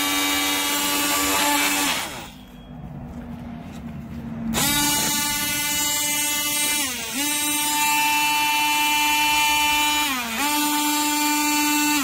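Ryobi cordless oscillating multi-tool buzzing steadily while pressed against the side of a galvanized steel can full of wet castable refractory, shaking air bubbles out of the mix. The buzz falls away for about two seconds a couple of seconds in, then comes back and dips briefly in pitch twice.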